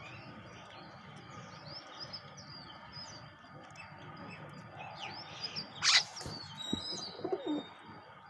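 Birds chirping and twittering, many small high chirps, with one loud, sharp call about six seconds in and a few lower gliding notes just after it.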